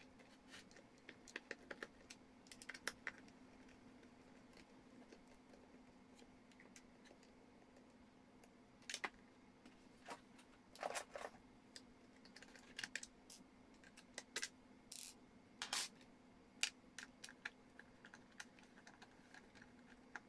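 Quiet, scattered clicks and taps of a screwdriver and plastic housing parts while a steam iron is being taken apart, coming in small clusters over a faint steady hum.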